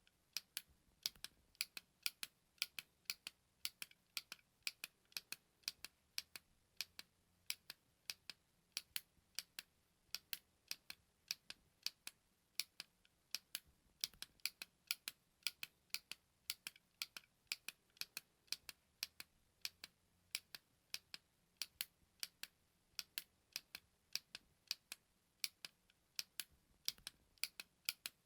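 A button clicking over and over, sharp and bright, two to three clicks a second and often in quick pairs.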